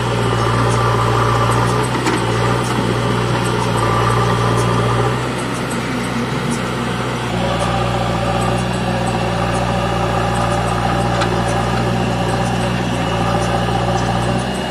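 Diesel engines of a Mahindra tractor and a JCB backhoe loader idling steadily, with a low, even hum; the sound shifts slightly about seven seconds in.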